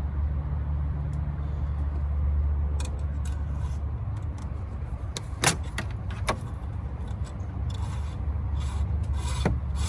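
Engine oil dipstick being handled at its tube on a shut-off Ford 6.7 Powerstroke diesel: a few sharp metallic clicks and taps, the loudest about five and a half seconds in. A steady low rumble runs underneath.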